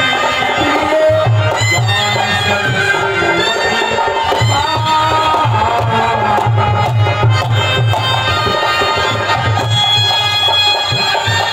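Live Indian folk music: a clarinet plays a reedy, bending melody over a steady hand-drum rhythm.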